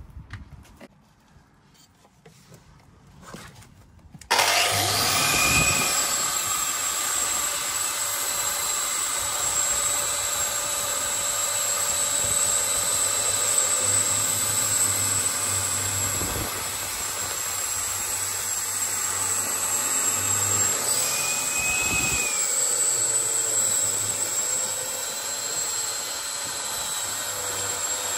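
Angle grinder with a dust shroud and vacuum extraction starts suddenly about four seconds in, then runs steadily with a high whine as it rakes mortar out of the joints of blockwork. Its pitch dips briefly twice, near the start and about two-thirds of the way through.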